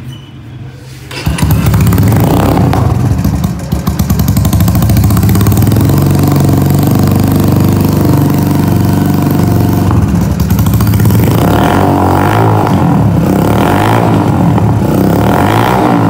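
Yamaha YBR 125's single-cylinder four-stroke engine, breathing through an aftermarket HKS muffler, starting from cold about a second in and then idling loud and steady. There are a few short throttle blips near the end.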